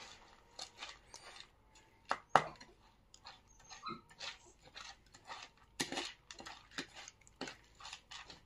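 Spoon scraping and clicking against a plastic bowl as cat food is stirred and mixed, in short irregular strokes, one louder knock about two and a half seconds in.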